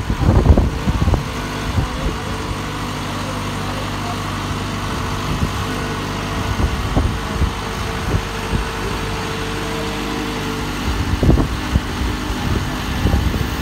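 Boat travel lift's engine running steadily, with a few knocks in the first second and again about eleven seconds in.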